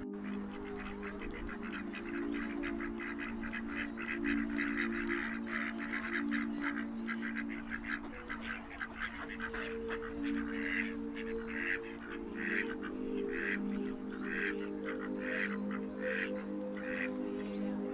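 Mallard ducks quacking repeatedly in short harsh calls, over background music with slow held chords.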